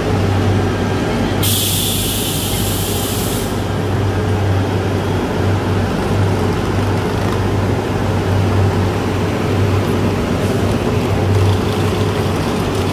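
Steady low drone of a large vehicle running. Near the start comes a hiss of about two seconds.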